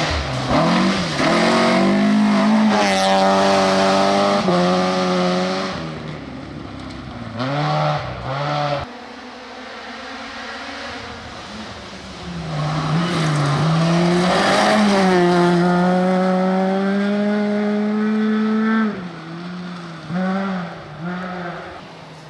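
Rally car engine revving hard and held at high revs, then falling away. Short lifts and blips of the throttle come around eight seconds in and again near the end, and a second long high-rev pull runs from about twelve to nineteen seconds.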